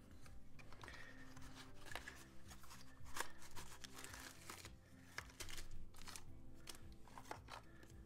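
Product packaging being handled and unpacked: a cardboard box and plastic-bagged cable rustling, crinkling and tapping in quick irregular handling noises, loudest about three seconds in and again around five seconds in. Soft background music plays underneath.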